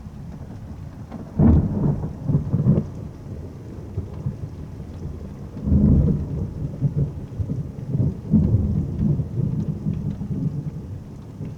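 Thunder during a storm, over steady rain: a loud crackling rumble about a second and a half in, and a second one about six seconds in that rolls on for several seconds.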